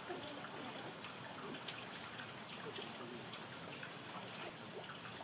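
Steady rain falling, an even hiss with scattered drips striking nearby surfaces.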